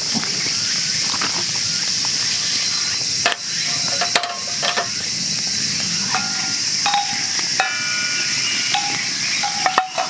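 Hamburger patties sizzling in an oiled skillet over a campfire, against a steady high insect drone, with a couple of sharp knocks about three to four seconds in.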